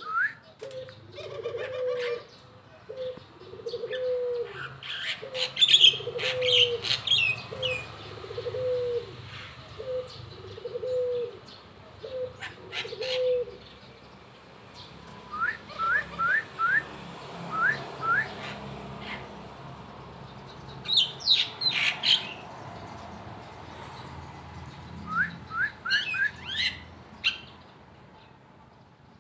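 Caged songbird calling with quick runs of short rising chirps and bursts of higher twittering; its keeper says its voice is still hoarse this morning. For the first half a dove coos a low, falling note about once a second.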